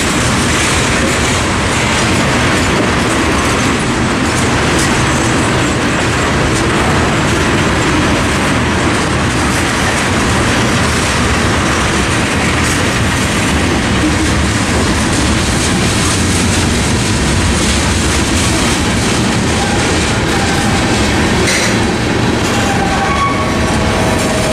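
Freight train of tank cars rolling steadily past: a continuous rumble of the cars with wheels clacking over rail joints, and a little wheel squeal near the end.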